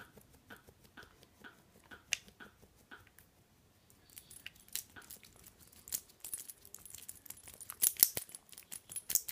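Phone handling noise with bedcovers rustling: scattered clicks and crackles that grow busier from about four seconds in and are loudest about eight seconds in. Before that, a faint soft blip repeats about twice a second.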